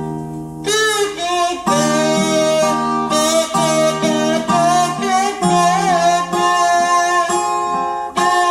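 Instrumental introduction to a gospel song, led by guitar chords with a held, wavering melody line on top.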